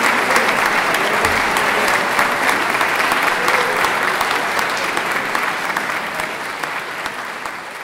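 Audience applauding, a dense patter of many hands clapping that fades out over the last few seconds.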